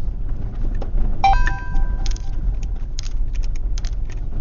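A vehicle driving over rough ground: a steady low rumble with loose things rattling and clicking. A brief ringing chime comes about a second in.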